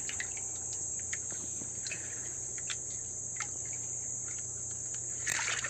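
Steady high-pitched drone of insects, with scattered small clicks and light splashes of water as hands work in a shallow rock pool. A brief, slightly louder splash comes near the end.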